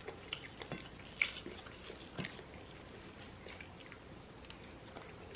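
Faint chewing of food close to the microphone, with soft scattered mouth clicks; the sharpest click is about a second in and another about two seconds in.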